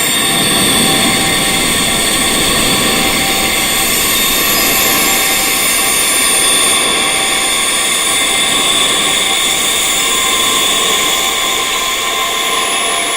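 Wind chimes tuned to tinnitus frequencies, their tones ringing on and overlapping into a dense, steady wash of many high held notes over a hiss, with no single strike standing out.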